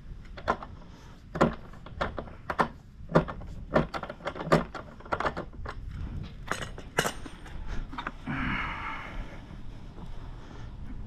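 A hand ratchet clicking in short, irregular strokes, about a dozen sharp metal clicks, as rear axle hardware on a motorcycle is tightened. About eight seconds in there is a brief scraping rasp.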